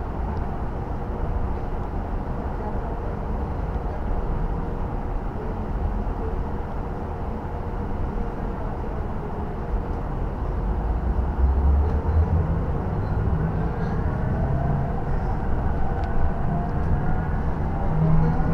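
Cabin noise inside a KAMAZ electric bus on the move: a steady low road rumble and hum, with a faint rising electric-motor whine in the last few seconds as it picks up speed.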